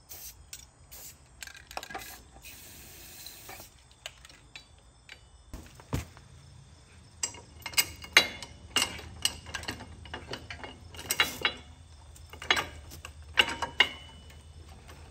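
Steel hand tools and metal parts clicking and clinking as a part is worked into place on a truck's front axle, with a dense run of sharp clicks in the second half. There is a brief hiss about three seconds in.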